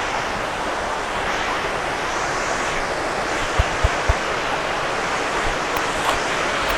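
Steady rush of water from a waterfall and its stream, an even hiss with no break, with three brief low thumps a little past halfway.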